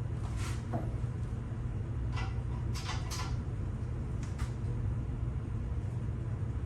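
Short scrapes and clacks of metal parts and tools being handled on an air compressor, about five in a few seconds, over a steady low hum.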